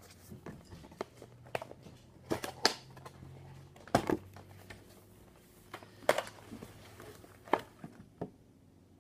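Cardboard product box being opened and handled: scattered rustles, scrapes and sharp taps of cardboard packaging, loudest about four seconds in and again about six seconds in.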